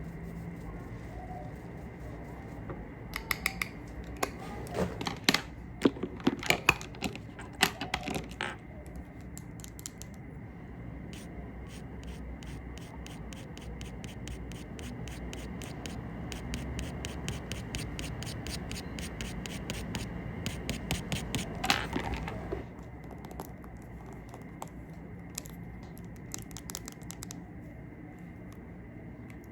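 Makeup tools handled close to the microphone: scratching and rubbing sounds, with a cluster of sharp taps about 3 to 8 seconds in, then a long run of quick, even taps or strokes, about three a second.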